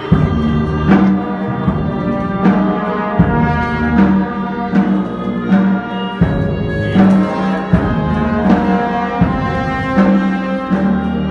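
Procession brass band playing a slow funeral march: held brass chords with a tuba bass line over a steady drum stroke about once every three-quarters of a second.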